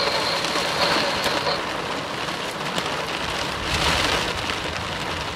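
Heavy rain hitting a car's roof and windshield in a severe thunderstorm, a steady dense hiss that swells louder for about a second a little past the middle.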